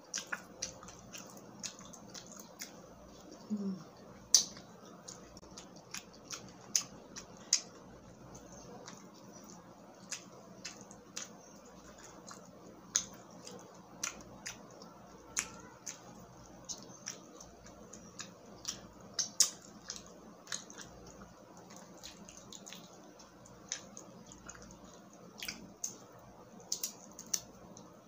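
Close-miked eating of butter garlic shrimp: wet chewing and sharp, irregular mouth clicks and crackles, with shrimp shell being peeled by hand near the end.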